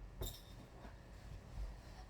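Handling noise of things being pulled off a bed: a short light knock about a quarter second in and a softer, duller thump near the end.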